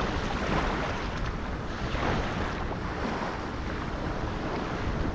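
Steady wind rushing across the microphone, with small waves lapping softly in shallow water.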